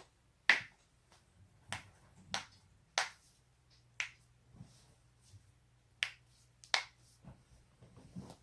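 Human joints cracking: a run of sharp, loud pops, about seven in all at irregular intervals, as the neck and back are twisted to make them crack.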